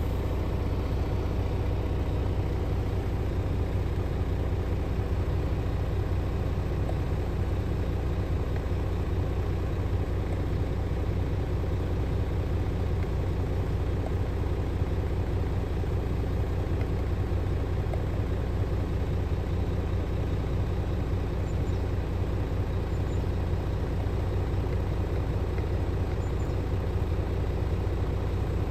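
Scania R450 truck's 13-litre inline-six diesel idling steadily, heard from inside the cab. A low, even hum with no change in engine speed.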